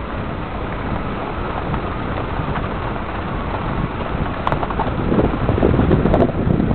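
Car driving over a rough, potholed dirt track, heard from inside: a steady low rumble with a few sharp knocks from the bumps, growing louder about five seconds in.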